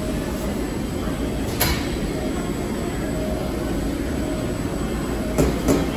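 Boxing machine running steadily as it packs candy bars into cartons, with a sharp mechanical clack about a second and a half in and two more close together near the end.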